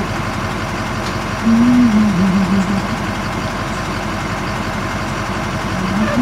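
Vehicle engine idling steadily while stopped, heard from inside the cab. A brief murmured voice about a second and a half in.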